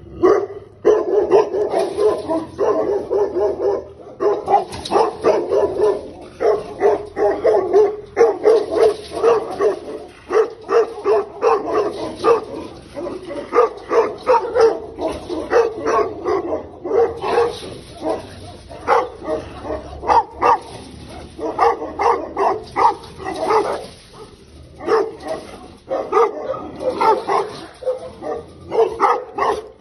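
Tibetan mastiffs barking again and again in quick runs, with brief breaks between runs.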